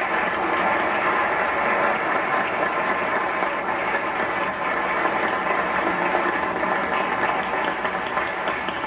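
Choir singing, a sustained sound full of held chords that carries on through the whole stretch without breaks.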